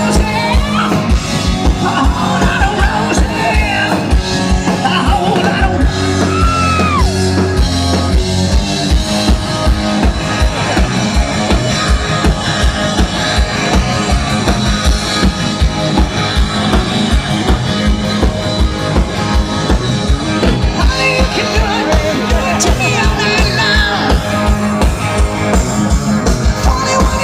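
Live rock band playing loudly, with a steady drum beat, electric guitar with bent notes and some singing.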